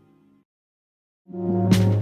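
Background music: one track fades out to silence about half a second in, and a new track comes in about a second later with sustained notes and a drum hit near the end.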